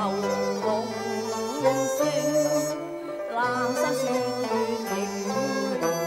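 Cantonese opera song accompaniment on traditional Chinese instruments, playing an instrumental passage: a melody that slides between notes over a bass line that moves in steps.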